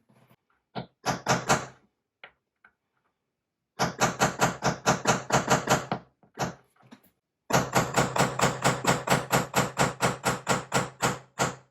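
Rapid light tapping on a ceramic wall tile, punching a rough spot into the smooth glaze at the drilling mark. There are a few taps at first, then a short run, then a longer steady run of about five taps a second.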